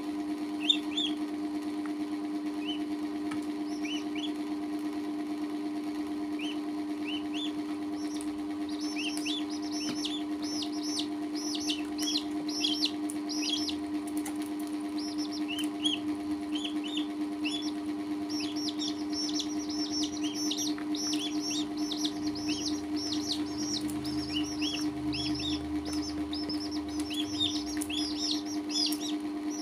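Baby chicks and a duckling peeping: short, high, falling peeps, scattered at first, then coming in quick runs about a quarter of the way in and again past the middle. A steady low hum runs underneath.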